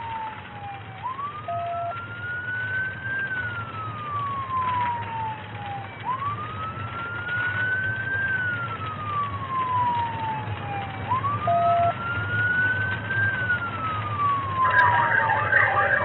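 Police car siren on a slow wail, rising over about two seconds and falling over about three, three times, heard from inside the moving cruiser over engine and road rumble. A short beep sounds twice, and a louder jumble of sound comes in near the end.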